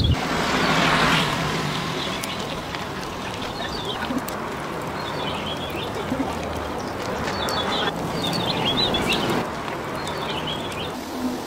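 Outdoor ambience: a steady noisy hiss, louder in the first second or so, with short chirping bird calls several times over it, most around the middle and near the end.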